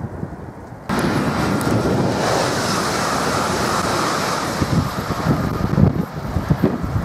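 High-speed electric train passing at speed close by: a loud steady rush of wheels and air that starts abruptly about a second in. Gusting wind buffets the microphone throughout, strongest near the end.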